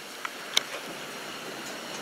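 Two light clicks as a metal-framed chair is gripped and shifted, over a steady faint hiss.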